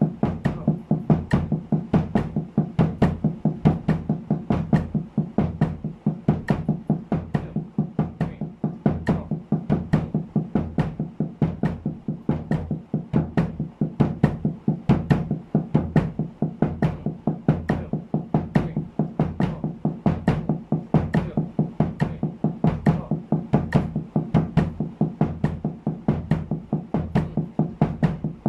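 Snare drum muffled with a towel, played with wooden sticks in a steady, even stream of double strokes at 70 beats a minute, with bass drum kicks on the last two sixteenth notes of each beat.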